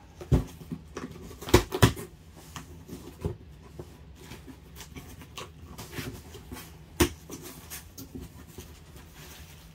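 A cardboard shipping box being opened and unpacked by hand: scattered rustling and scraping, with a few sharp knocks. The loudest are two close together about a second and a half in, and another near seven seconds.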